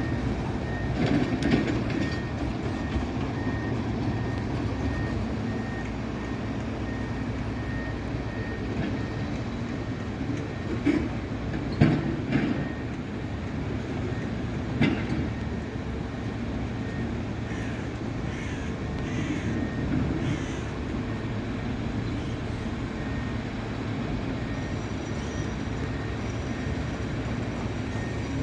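Heavy demolition machinery at work: a steady low diesel rumble, with a faint high beep repeating evenly through the first half and a few sharp metallic clanks about 11, 12 and 15 seconds in.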